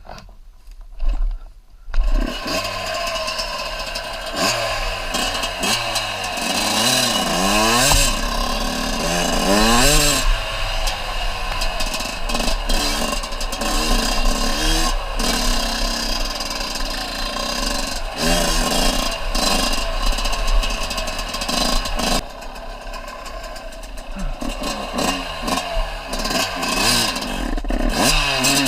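Small off-road vehicle engine starting about two seconds in, then running and revving repeatedly up and down, with a dip in level near the end.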